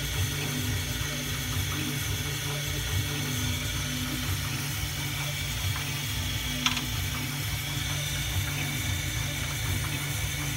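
Roland MDX-40 desktop CNC mill running, its spindle driving a conical bit that cuts letters into a jeweler's wax ring blank turned on the rotary fourth axis: a steady mechanical hum with several constant tones, and one sharp click about two-thirds through.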